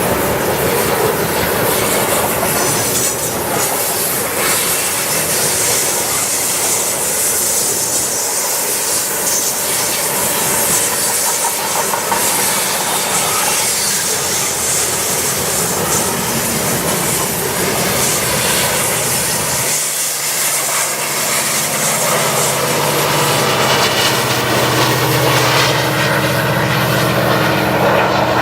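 CN freight train rolling past: the cars' wheels clickety-clack over the rail joints with some wheel squeal and hiss. About two-thirds of the way through, a steady low engine drone joins the wheel noise.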